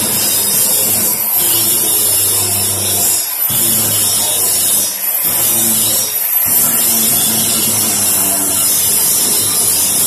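Handheld angle grinder grinding down a metal window grill: the disc's loud steady hiss on the steel over the motor's hum, which breaks off briefly a few times as the grinder is worked along the bars.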